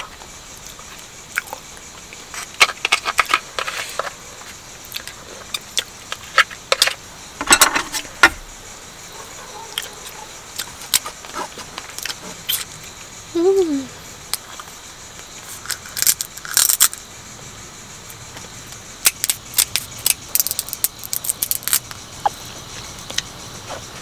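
Eating a charcoal-grilled blue swimming crab by hand: irregular crisp cracks and crackles of shell being broken and picked apart, clicks of chopsticks, and chewing.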